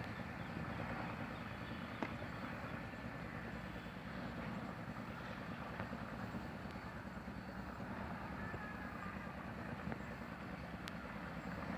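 A train running, heard as a steady low noise with no distinct knocks or horn.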